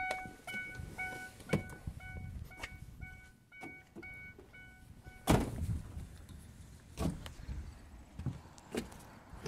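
A Ford Ranger pickup's door-open warning chime beeping rapidly, about three times a second, for the first four seconds, then a loud thump about five seconds in, likely the door being shut. A few lighter knocks follow.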